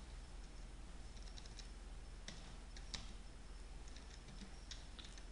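Faint, irregular keystrokes on a computer keyboard as a name is typed, over a low steady hum.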